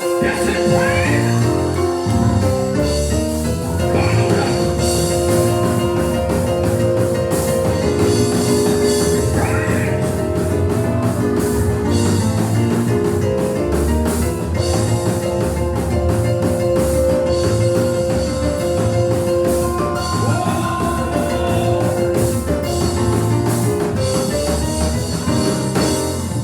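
Gospel church music, steady and loud: drums keeping a beat under long held chords that change every few seconds.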